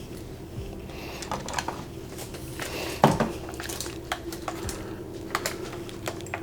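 Scattered clicks and knocks of hands at work, with one loud, sharp clack about three seconds in, over a steady low hum.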